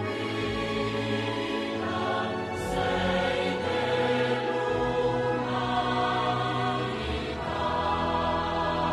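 Slow choral music: voices singing long held chords that change every second or two.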